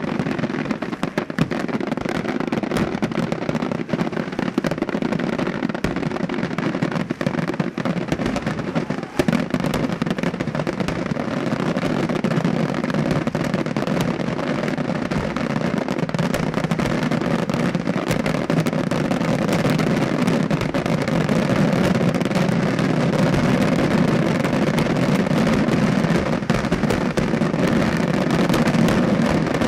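Daytime fireworks display: a continuous rapid barrage of aerial shell bursts and crackling firecrackers, growing a little denser and louder in the last third.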